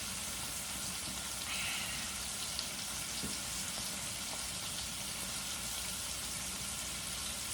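Tri-tip steaks searing in butter in a stainless steel pan: a steady sizzle with a few faint pops.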